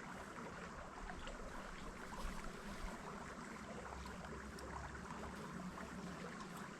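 Faint, steady rush of a creek flowing, with a few faint clicks.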